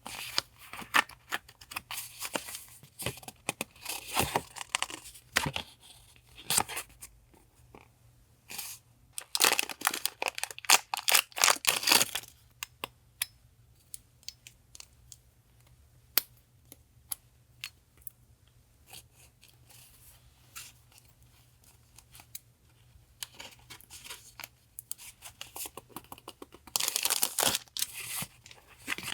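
Paper being handled and pages of a handmade notebook being turned: irregular bursts of rustling with small clicks and taps between. The longest, loudest rustling comes about ten seconds in, with another burst near the end.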